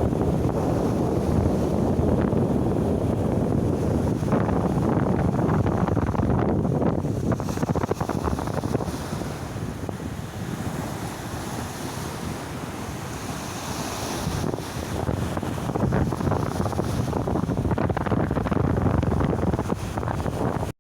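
Sea surf washing ashore, with wind buffeting the microphone; the wash swells louder in the first seconds and again near the end, easing off in between.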